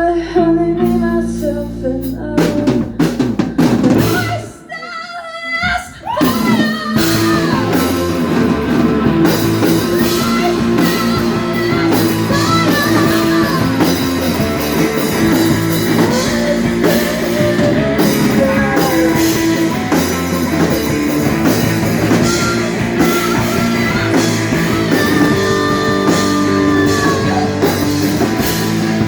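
Live rock band playing, with drum kit, electric guitar, bass and singing. A few seconds in the band drops out briefly after some drum hits, then comes back in full with the vocals.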